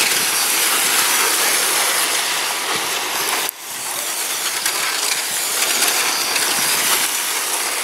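Electric R/C racing trucks with 17.5-turn brushless motors running laps on a concrete oval: a steady, hissing mix of motor whine and tyre noise. It drops out abruptly for a moment about three and a half seconds in, then picks up again.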